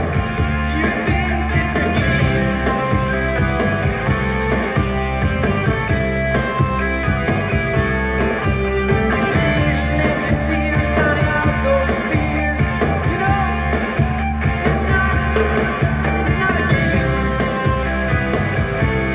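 Rock and roll song with a singer, playing steadily through a vintage Pioneer SX-580 stereo receiver and JVC bookshelf speakers.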